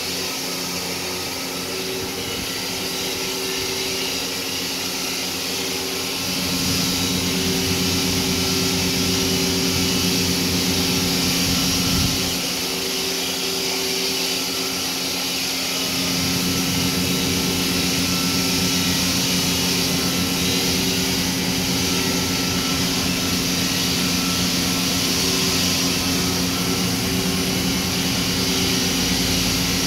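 Crane's diesel engine running steadily under load with a hum and a hiss on top. It grows louder about six seconds in, eases back for a few seconds from about twelve seconds, and is louder again from about sixteen seconds on.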